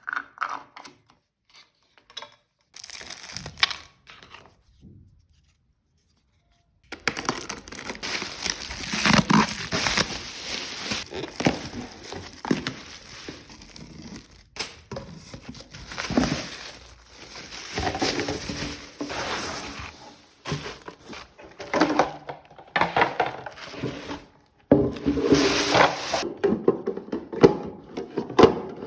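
Packing materials being handled: irregular crinkling and tearing, with short pauses and a brief dead gap a few seconds in.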